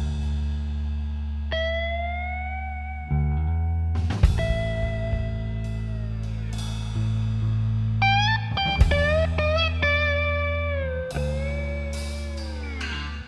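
Background music: electric or slide guitar playing bending, sliding notes over a steady bass.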